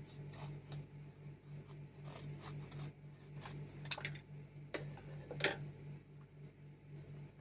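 Tin can being opened by hand with a can opener: a run of small metal clicks and scrapes, with a sharp click about four seconds in and a scraping sound about a second later. A steady low hum runs underneath.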